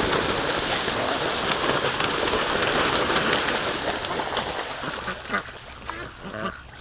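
A flock of white Pekin ducks splashing and flapping hurriedly through a shallow creek, a steady rush of spray. It dies down after about four and a half seconds, and a few short duck quacks come near the end.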